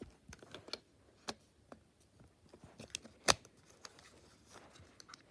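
Scattered small clicks and plastic handling noises as a power plug is fitted into a voltage converter's socket, with one sharp click about three seconds in.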